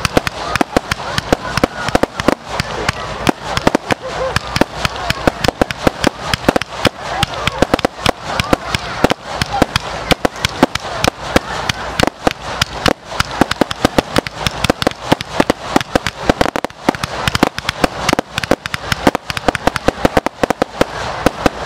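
Fireworks going off in a rapid, unbroken string of sharp pops and bangs, many per second.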